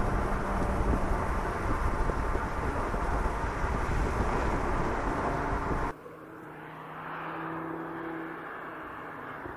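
Audi TT RS Roadster driving at speed with the top down, heard from its rear deck: heavy wind and road noise over a low rumble from its turbocharged five-cylinder engine. About six seconds in the sound cuts abruptly to a quieter, steady engine hum.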